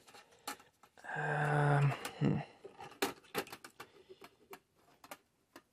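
Scattered clicks and crackles as a Zenith Royal 1000 Trans-Oceanic transistor radio is connected to its power supply and switched on, with a short steady hum lasting under a second about a second in.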